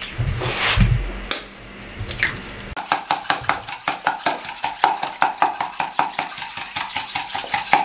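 Metal hand whisk beating raw eggs in a bowl: a few separate taps at first, then from about three seconds in a fast, even run of clicking strokes against the bowl.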